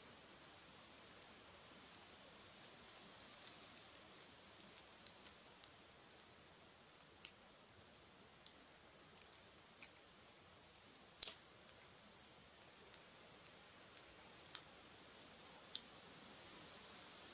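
Dry twigs crackling and snapping around a small newly lit kindling fire: scattered sharp, irregular cracks over a faint hiss, the loudest about eleven seconds in.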